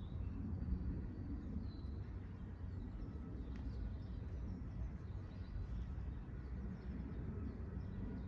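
Small birds chirping faintly here and there over a steady low outdoor rumble.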